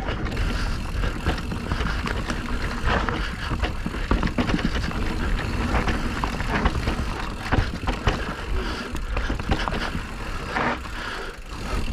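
Electric mountain bike riding fast over a rough dirt trail: tyres rolling over dirt and rocks, with frequent clicks and rattles from the bike over a steady low rumble.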